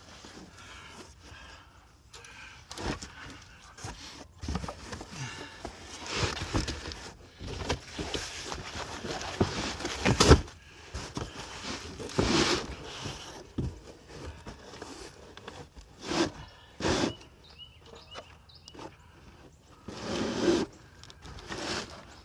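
Irregular knocks, clunks and scraping of hands-on work, handling tools and equipment, with one sharp knock about ten seconds in.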